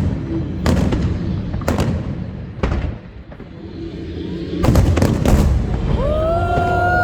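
Aerial fireworks bursting overhead: sharp booms about a second apart, with a quick cluster of bursts past the middle. Near the end, a held tone with overtones comes in and slowly sinks in pitch.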